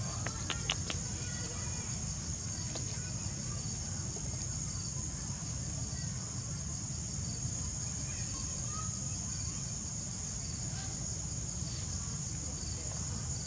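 Steady high-pitched chorus of insects, with a low background rumble and a few sharp clicks near the start.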